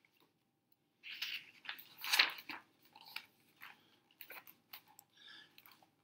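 Paper rustling and crinkling as a hardcover picture-book page is turned and flattened: a run of short scratchy rustles starting about a second in, the loudest about two seconds in.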